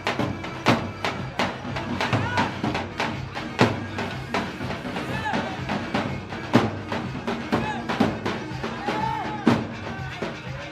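Live Arabic folk wedding dance music led by a large tabl drum, beating a steady rhythm of heavy strokes about every three-quarters of a second with lighter strokes between, over a wavering melody.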